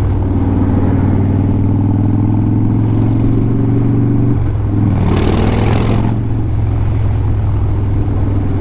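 Motorcycle engine running steadily; its note steps down about four seconds in. A brief rush of noise follows about five seconds in.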